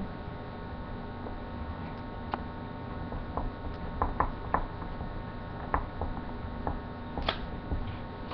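Steady electrical mains hum, with a scattering of small sharp clicks and taps.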